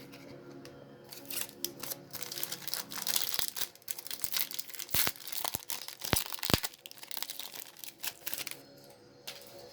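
Yu-Gi-Oh booster pack's foil wrapper crinkling and tearing as it is opened by hand: an irregular run of crackles and rips.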